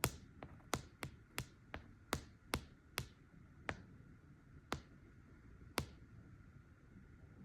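Fingernails tapping on a hard surface: sharp clicks that slow from about three a second to single taps a second or more apart.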